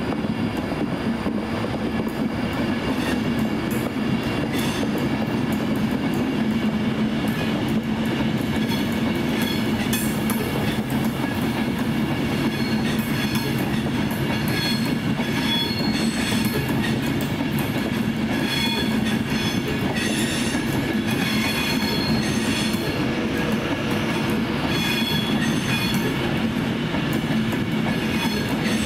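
Avanti West Coast Class 390 Pendolino electric train running steadily through the station over a crossover, its wheels clicking over the points, with brief high wheel squeals coming and going.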